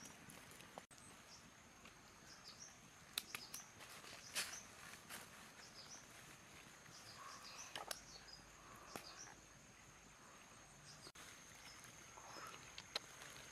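Faint forest ambience: a steady high insect whine with scattered bird chirps. A few short clicks and knocks come from banana-stem pieces and a fish being handled in a clay pot.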